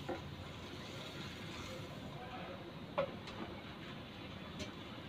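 Low steady hiss with a few light clicks and knocks from kitchenware, the sharpest about three seconds in and another near the end.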